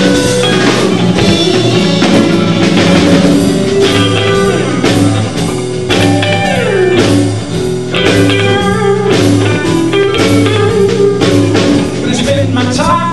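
Live band playing an instrumental rock passage: electric guitar over bass guitar and drum kit, with the guitar sliding down in pitch about halfway through.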